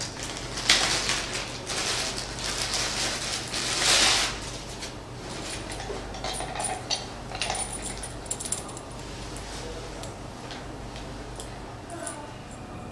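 Handling noises from someone working around the laser cart: a few seconds of rustling, then a run of light clicks and clinks, over a low steady hum.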